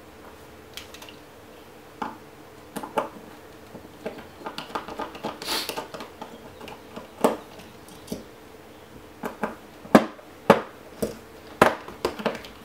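Scattered clicks and taps of a screwdriver and small screws being handled on the metal shell of an ICS M4 airsoft gearbox. The clicks come more often and louder in the last few seconds.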